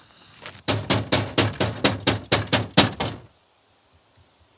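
Rapid knocking on a door, about eleven knocks at roughly four a second, lasting a little over two seconds.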